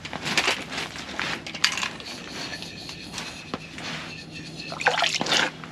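Rustling, scraping and light clattering of things being handled at close range, with several sharp clicks and a louder burst near the end, over a steady low hum.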